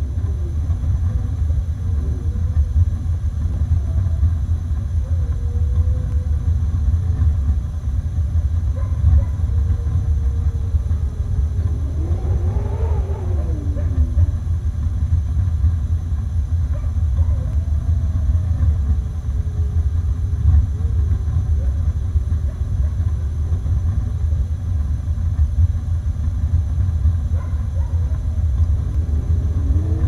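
Wolves howling in long drawn-out calls that glide up and down, with one clear rising-and-falling howl about halfway through and another near the end, over a steady deep rumble of snowstorm wind.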